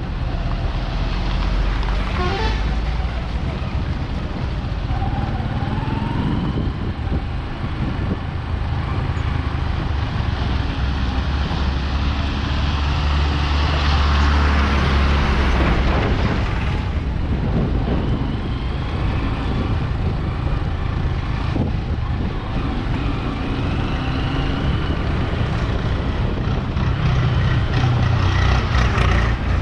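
Road traffic on a highway: vehicles, including heavy trucks, running with a steady low engine rumble, and one passing louder about halfway through.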